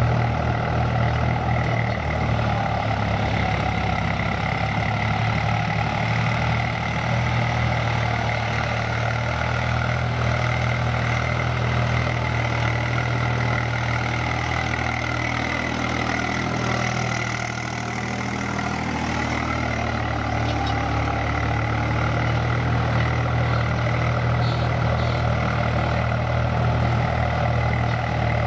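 Swaraj tractor's diesel engine running steadily while pulling a tine cultivator through the soil. The sound dips briefly a little past the middle.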